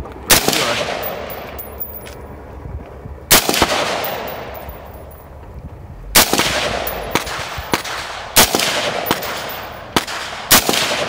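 Custom AR-15 rifle fired semi-automatically, six single shots. The first four come a couple of seconds apart and the last two about half a second apart. Each crack is followed by a long echo.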